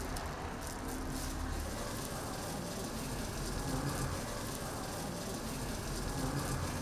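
Food frying on a flat griddle, a steady sizzle over a low rumble.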